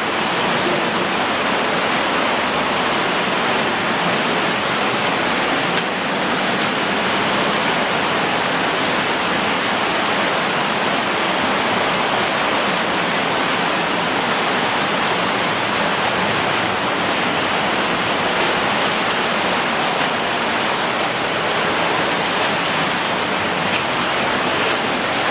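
Underground stream pouring over a waterfall in a cave passage: a loud, steady rush of falling water with no change in level.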